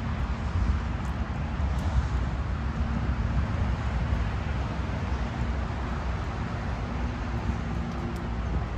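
Steady low rumble of distant road traffic from an adjacent motorway, with a faint steady hum running through it.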